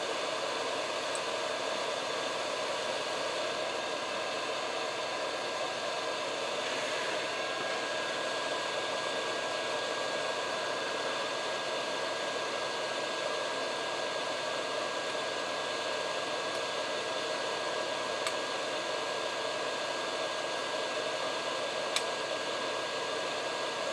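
Hot-air gun of an SMD rework station blowing a steady airy hiss over a circuit board while a tiny surface-mount capacitor is heated to loosen its solder.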